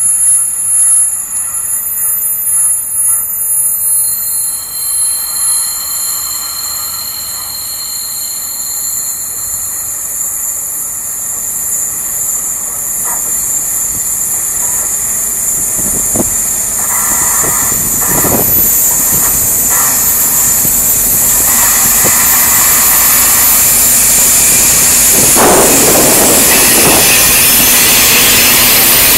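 Two Dv12 diesel-hydraulic locomotives hauling a freight train, approaching and growing steadily louder, then running close past in the last few seconds.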